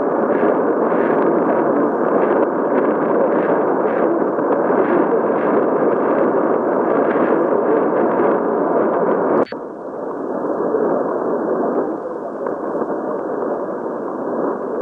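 Shortwave receiver tuned to 4990 kHz producing dense hiss and static, with only a weak signal buried in the noise. About two-thirds of the way through, a click comes as the mode switches from AM to lower sideband, and the noise then sounds narrower and a little quieter.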